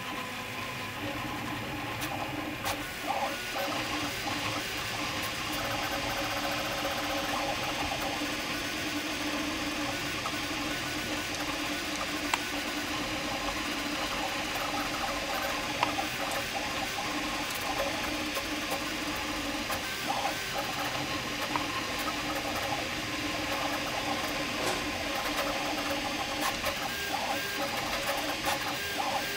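Prusa MK4 3D printer printing at high speed under input-shaping firmware: its stepper motors whine in several steady tones that keep shifting as the print head darts about, with a few sharp ticks along the way.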